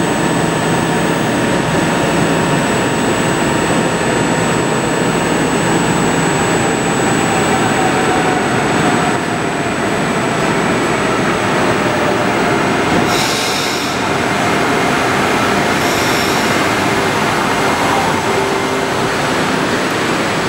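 SJ electric multiple unit running into an underground rock-tunnel station and drawing in along the platform with a steady loud rumble. A faint falling whine sounds as it slows, and there are two short high squeals, about halfway and again a few seconds later.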